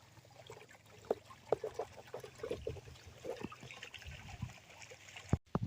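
Water trickling and gurgling in small, irregular drips and splashes, with a sharp click near the end.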